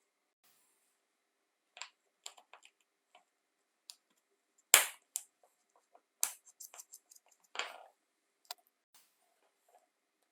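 Sparse clicks, taps and knocks of small hard parts being handled, with one sharper knock a little before halfway, a quick run of clicks after it and a brief scrape near the end.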